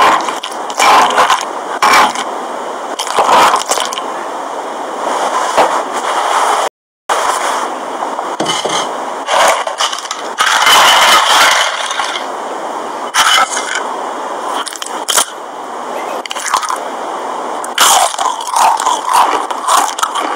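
Foley of mashing in a stone molcajete: gritty scraping and crunching broken by sharp cracks, with a brief dropout about a third of the way in.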